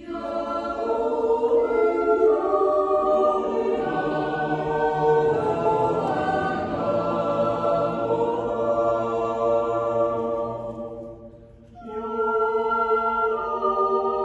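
Swiss yodel choir of men's and women's voices singing a cappella in long held chords. The phrase dies away about eleven seconds in, and a new phrase begins a second later.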